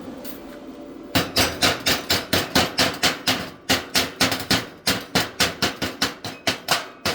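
Chipping hammer rapping on a steel weld, knocking off the slag left on a 7018 stick weld: a rapid run of sharp metallic strikes, about four a second, starting about a second in.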